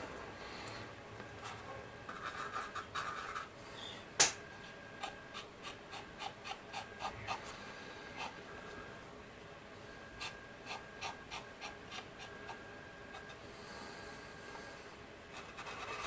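Cotton bud rubbing over a plastic scale-model tank hull in runs of short, quick strokes, wiping off an oil wash, with faint scratching. One sharp click about four seconds in.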